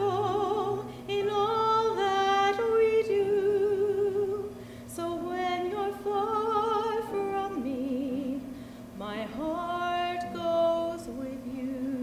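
A woman singing a musical-theatre song solo, in phrases of long held notes with wide vibrato and short breaks between them.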